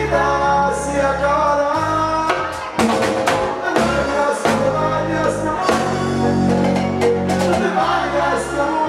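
Latin song playing loudly: a voice singing over bass, percussion and plucked melodic lines.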